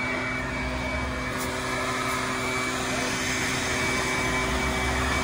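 Large dual-wheeled truck's engine running steadily, a constant whine over a low rumble.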